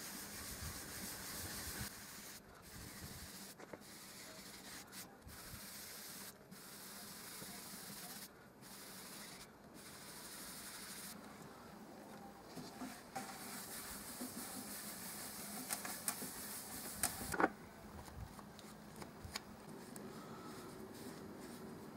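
Cotton cloth rubbing Briwax into a sapele-veneered wooden surface in circular strokes: a faint, steady scrubbing hiss broken by several brief gaps. One sharp knock comes about two-thirds of the way through.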